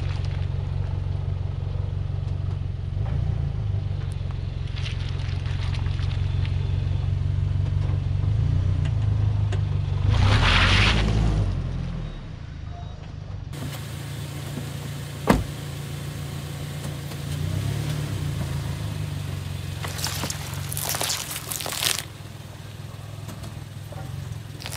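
Toyota seven-seat SUV's engine running slowly with a steady low hum as its tyres roll over asphalt and crushed fruit, with a louder rush of noise about ten seconds in. Later comes a single sharp click, and near the end a short crackling crunch as a tyre flattens a pineapple.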